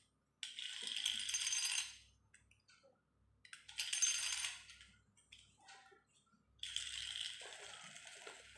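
Bloody Longinus Beyblade top spun by hand three times on a hard tile floor, each time whirring and rattling as it skitters across the tiles for a second or two before it dies down. It wanders and won't stay in one place, as attack-type tops do.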